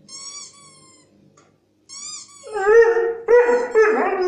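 High squeaky-toy squeaks from a phone's speaker, twice, then about two and a half seconds in a Xoloitzcuintli (Mexican hairless dog) breaks into a loud whining howl, its pitch bending up and down.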